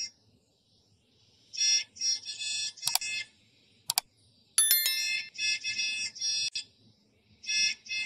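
A school bus horn sound effect, pitched up and chopped into clusters of short, high-pitched beeping honks. About three to four seconds in come two sharp clicks, then a ding.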